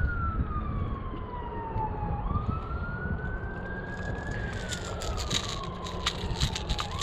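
A siren wailing, its pitch rising and falling slowly about once every four to five seconds. A quick run of clicks and rattles comes in over it from about four seconds in.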